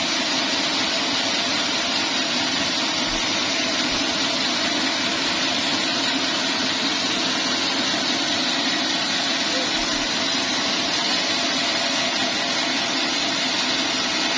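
Bandsaw mill running steadily.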